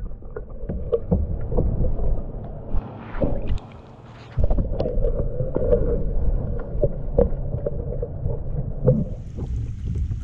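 Muffled underwater sound from a submerged action camera: a low rumble of moving water with many scattered clicks and knocks. Near the end the camera comes out of the water and the open-air hiss of wind and water returns.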